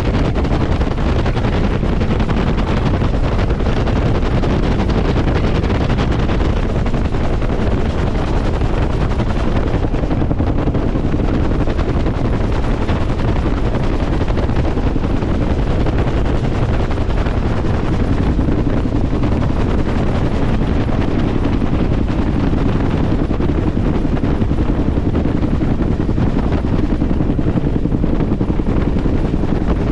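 Bell UH-1 'Huey' helicopter in flight, heard from inside the cabin: a steady, loud noise from the turbine and two-bladed rotor, with wind buffeting the microphone.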